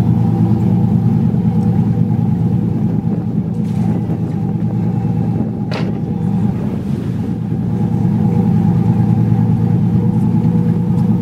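Fishing boat's engine running steady, a low even drone, with one brief click about six seconds in.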